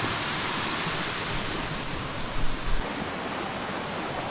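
Waterfall rushing steadily, an even roar of falling water, with a few brief low bumps on the microphone about two and a half seconds in.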